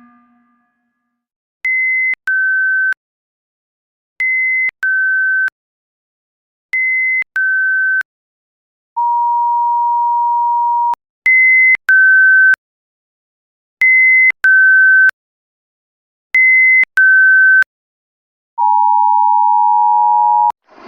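Fictional Emergency Alert System alarm made of pure electronic tones. A high beep drops to a lower one, and this pair repeats three times. Then comes one long steady lower tone, three more high-low pairs, and a long two-tone chord near the end.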